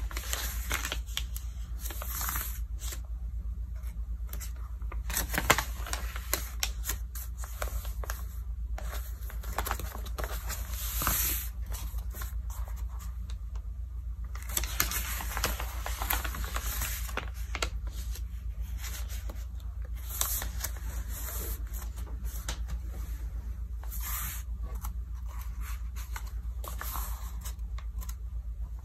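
Glossy Vogue magazine pages being handled by hand: irregular paper rustling and crinkling, with a page turn near the start and a longer run of rustling about halfway through. A steady low hum sits underneath.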